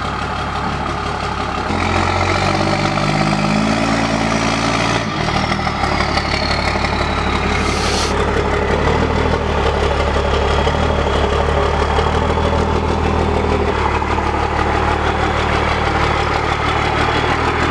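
Diesel truck engine idling steadily, getting louder about two seconds in.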